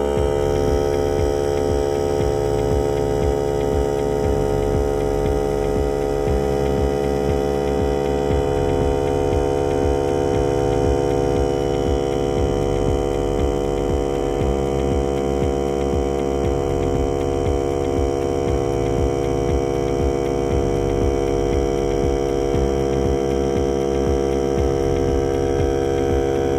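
Workzone cordless portable air compressor's motor and pump running continuously while pumping up its tank, a steady hum whose pitch sags slightly as the load builds.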